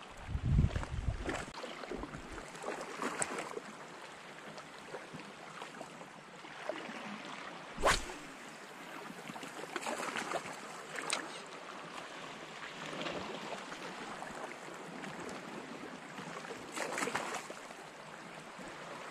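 Steady wash of shallow seawater at the shore with light wind on the microphone, some rumble of wind or handling in the first second or so, and a sharp click about eight seconds in.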